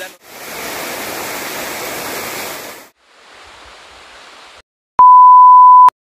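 Waterfall water crashing and splashing for about three seconds, then a fainter hiss, then a loud, steady test-tone beep lasting about a second: the bleep that goes with TV colour bars.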